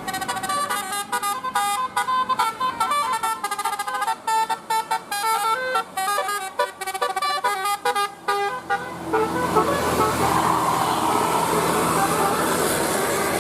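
Bus 'telolet basuri' musical air horn playing a quick tune of short, choppy notes. About two-thirds of the way in the tune stops and a loud, steady rushing noise takes over.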